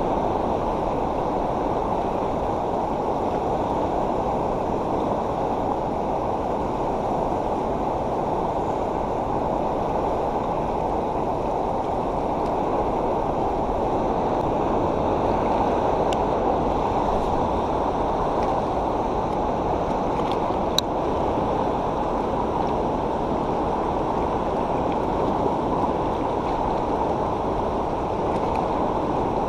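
Steady rush of flowing water, as of water running below a dam, with one short sharp click about two-thirds of the way through.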